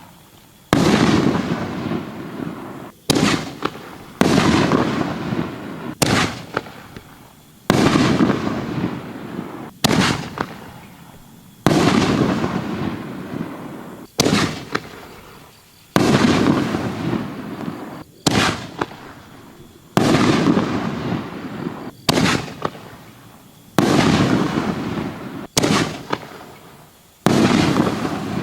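Consumer aerial fireworks firing a shot about every two seconds. Each is a sharp bang that trails off over a second or two, with a few smaller pops in between.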